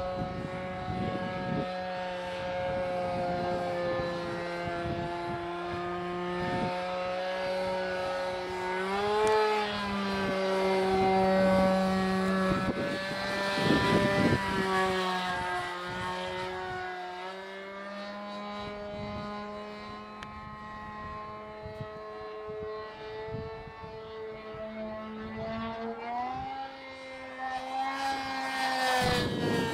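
Nitro glow engine of a Hangar 9 Twist 40 RC airplane running in flight, a steady high buzz whose pitch shifts up and down as the throttle and the plane's path change. Brief rushing noise bursts come about halfway through and again near the end.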